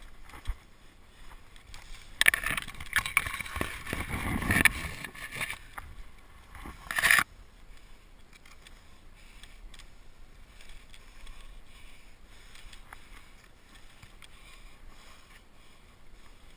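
Rustling, rubbing noise on the climber's camera microphone as it moves against cypress branches and bark: a loud stretch of a few seconds starting about two seconds in, then a brief loud burst near seven seconds, and faint rustling with small ticks afterwards.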